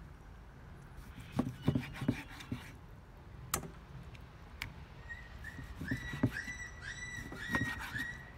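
A knife slicing raw beef on a wooden chopping board, with scattered knocks of the blade on the wood. From about five seconds in, a short high-pitched animal call repeats again and again in the background.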